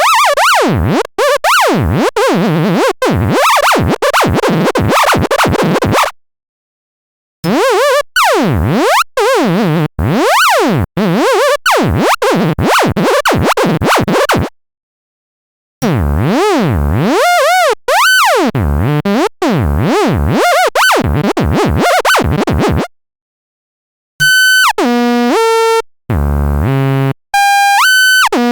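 Synthesized tones made from the traced outlines of algebra symbols (Fourier epicycle drawings turned into sound), sweeping rapidly up and down in pitch. They come in four bursts separated by about a second of silence. The last burst, near the end, changes to stepped, buzzy tones.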